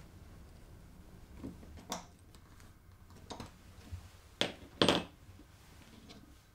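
Small plywood bars and metal hardware being handled on a work table: a few scattered light knocks and clicks, the two loudest close together about four and a half seconds in.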